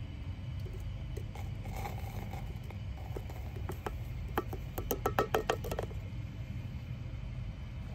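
Ground coffee tipped from a plastic scoop into an AeroPress chamber, with light scrapes and then a quick run of clicks and taps past the middle as the scoop knocks against the rim. A steady low rumble runs underneath.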